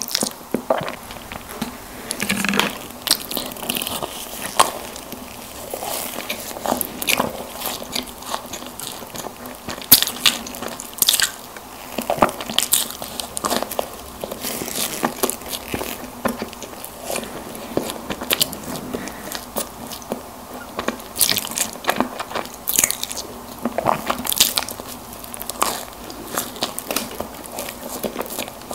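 Close-miked eating of soft sponge snack cakes: biting and chewing, with many irregular sharp mouth clicks.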